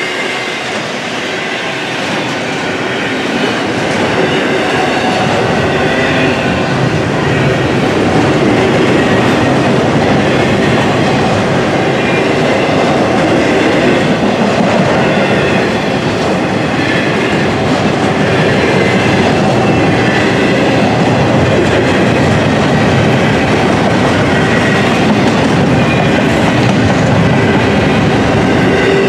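Double-stack intermodal container well cars of a freight train rolling past, steel wheels rumbling and clattering on the rails. The sound grows louder over the first several seconds, then holds steady.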